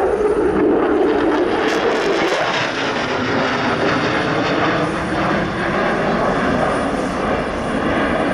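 F-16 Fighting Falcon jet making a pass, its engine loud. A tone falls in pitch over the first two seconds or so as it goes by, then a steady rushing noise follows.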